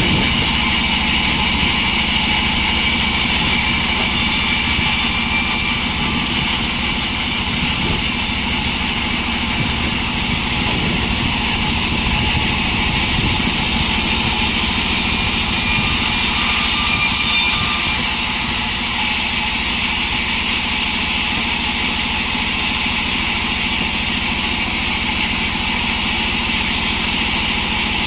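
Engine-driven sawmill running steadily, with a slight drop in level about 18 seconds in.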